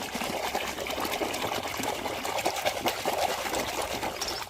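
Water trickling and splashing continuously as a muddy toy is washed by hand in a tub of water.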